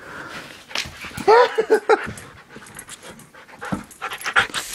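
Young Siberian husky panting, with a quick run of short, high, wavering whines about a second in.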